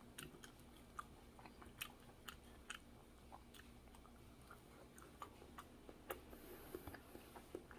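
Faint chewing of food, with scattered small clicks.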